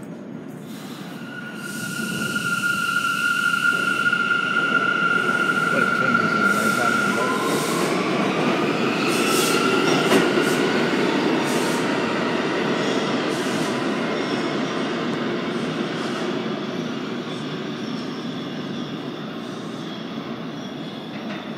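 Bombardier R179 subway train pulling out of an underground station and accelerating. Its motors whine, first on a steady high tone and then on tones that rise in pitch as it gathers speed, over the rumble and clatter of the wheels. The sound is loudest about ten seconds in and fades as the train leaves.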